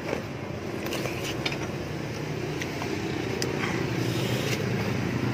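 Steady road-traffic rumble, with a few light clicks and scrapes of a plastic spoon in a plastic cup of soup.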